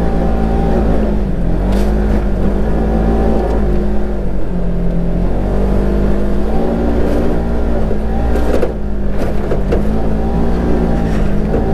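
Polaris RZR XP 900 side-by-side's parallel-twin engine running under throttle while pulling through deep snow. Its pitch holds steady, then dips and climbs back several times. A few short knocks come about two seconds in and again around nine seconds in.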